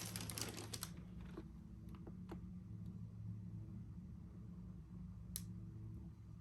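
Cardboard shoe box being handled: a quick run of clicks and rustles in the first second, then a few single ticks, over a steady low hum.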